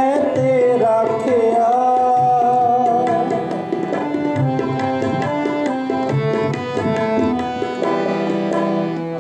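Shabad kirtan instrumental passage: a harmonium plays a melody over steady tabla strokes. A singer's long held note wavers and trails off over the first few seconds.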